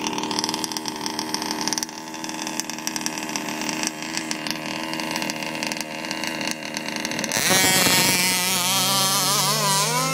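Small two-stroke engine of a 30.5 cc Baja 5T RC buggy running at a steady idle, then about seven seconds in opening up hard with a wavering, rising pitch as it accelerates away. A larger car engine rises in pitch underneath as the Jeep pulls away too.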